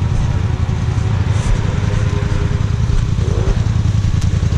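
ATV engine running steadily at low revs, a continuous low rumble without revving.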